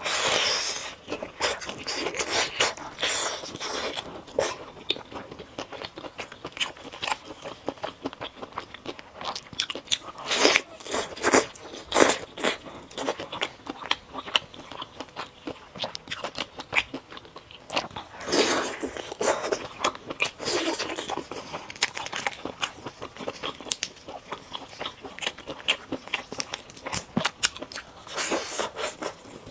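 Close-miked eating sounds: bites, crunches and wet chewing as a person eats a roasted chicken leg, coming in clusters of quick clicks and crackles.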